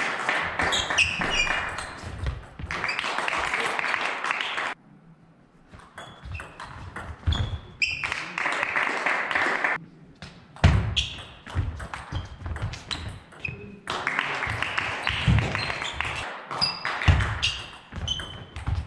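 Table tennis ball clicking off rackets and the table during rallies, with dull thuds among the clicks. Long stretches of dense noise come between the rallies.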